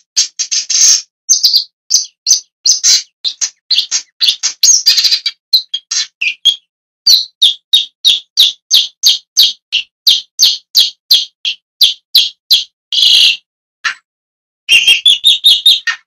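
Long-tailed shrike calling: a fast run of short, harsh call notes, about three a second, broken by a pause of about a second near the end.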